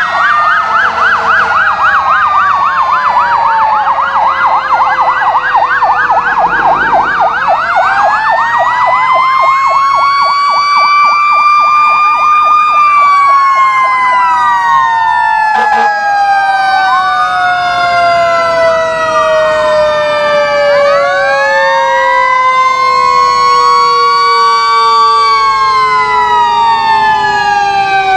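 Several fire truck sirens sounding at once as the trucks pass. A fast yelp runs for the first several seconds alongside slow wails rising and falling, while one long siren tone winds steadily downward.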